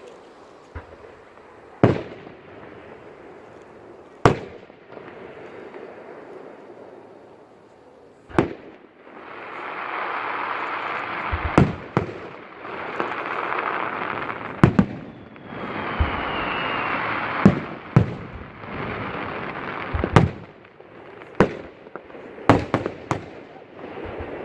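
Aerial fireworks shells bursting in a display: about fourteen sharp bangs at irregular intervals, coming quicker toward the end, with a dense hiss between bursts through the middle and a faint falling whistle about halfway.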